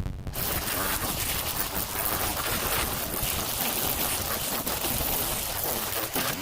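Cordless string trimmer whirring as its line cuts through grass: a dense, steady hiss that starts suddenly shortly after the beginning.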